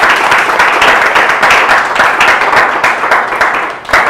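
Applause: many hands clapping in a dense patter that thins and dies away near the end, with one last sharp clap.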